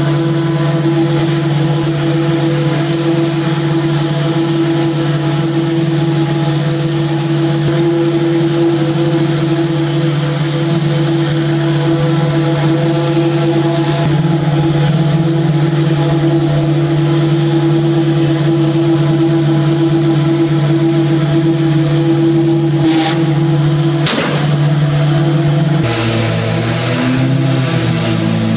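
Heavy show machinery running: a loud, steady droning engine note with several steady pitches stacked together. Two short bursts of noise come shortly before the end, and then the drone shifts to a different, lower set of pitches.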